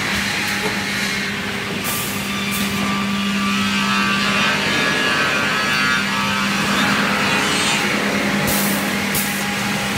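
Automatic sawmill processing line running, with a steady motor hum and machine noise from the conveyors and saw units. Short hisses of compressed air come from the pneumatic cylinders, twice about two seconds in and twice near the end.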